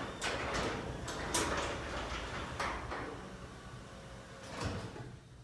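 Craftsman 3/4 HP belt-drive garage door opener running, with a steady motor hum, as the sectional door travels on its nylon rollers with a few light clacks. The sound fades away near the end.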